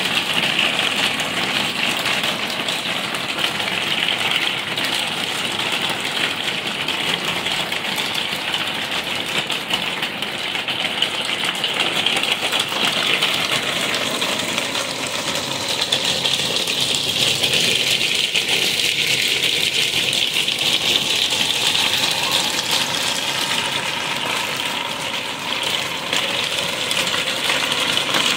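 Hailstones falling steadily and rattling on a gravel patio, plant pots and a garden table: a dense, even clatter of countless small hits.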